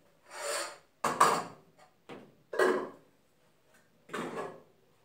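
Aluminium pots and a pot lid being handled at the stove: about five short scrapes and clanks of metal, the loudest a sharp knock about a second in.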